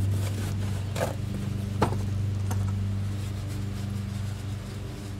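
A steady low hum, with a few light clicks and taps of tools or hands working on the fasteners around one and two seconds in.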